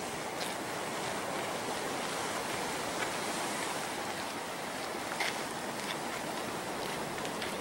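Steady hiss of ocean surf washing onto a beach, with a few faint clicks.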